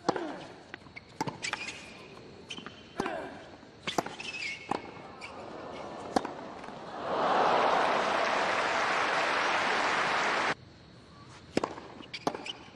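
Tennis rally: sharp racket-on-ball hits about a second apart. Then the stadium crowd applauds and cheers the point for about three seconds, cut off suddenly. Two more ball hits come near the end.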